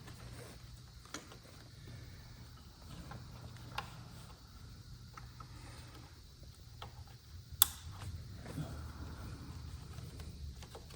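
Scattered small clicks and handling noises as motorcycle handlebar control wiring is pushed and routed into place, with one sharp, loud click a little past halfway. A faint steady low hum runs underneath.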